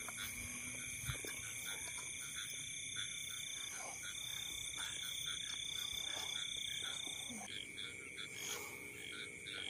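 Night chorus of frogs calling with short croaks repeated several times a second, over steady high-pitched insect trilling, part of which breaks off near the end.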